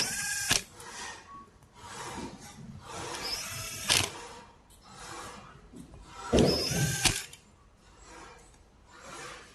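Power drill running in short bursts of under a second, with a whine that rises as it spins up each time, as it works on the screws of an e-bike hub motor.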